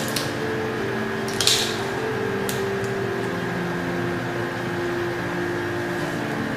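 Steady background hum with a few held tones, broken by a short rustle about one and a half seconds in and a faint click about a second later, as a syringe is worked on and pulled off a urinary catheter's balloon port.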